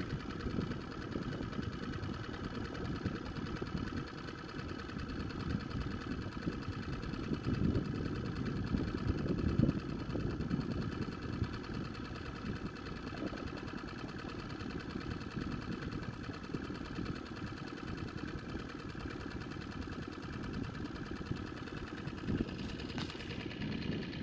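Small boat's motor running steadily with an even hum, over an uneven low rumble.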